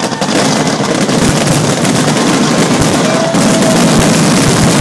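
Fireworks finale barrage: shells bursting in quick succession with a dense continuous crackle and no gaps between bursts, growing louder about three and a half seconds in.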